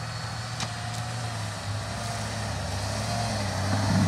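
Off-road 4x4 vehicle engine running steadily, getting louder near the end, with a couple of faint clicks about half a second and a second in.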